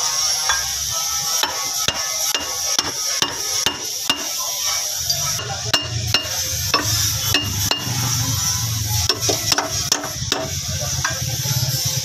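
Irregular metallic clicks and knocks from a replacement front lower control arm being handled and worked into its mounting on a car's front suspension, over a steady hiss. A low hum joins about five seconds in.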